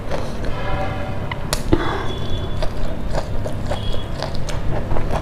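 Close-up hand-eating sounds: fingers handling boiled string beans and rice on a plate, a couple of sharp clicks, then biting as the food goes into the mouth, over a steady low hum. A short pitched tone with several overtones sounds about half a second in.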